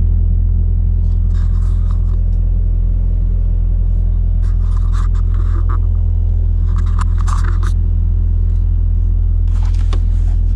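A machine motor runs with a loud, steady low hum throughout. Short rasping scrapes come and go about four times over it.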